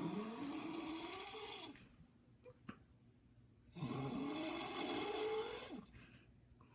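A man snoring: two long snores, each with a pitched tone that rises steadily through the breath, separated by a quiet pause.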